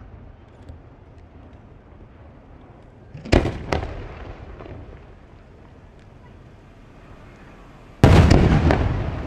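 Aerial fireworks shells bursting: two sharp bangs in quick succession about three seconds in, then a louder boom near the end that rumbles away slowly.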